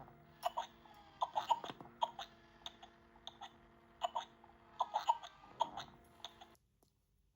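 Baby Born Annabell interactive doll's built-in speaker playing a run of short, irregularly spaced baby noises over a faint steady hum, which all stop abruptly about six and a half seconds in.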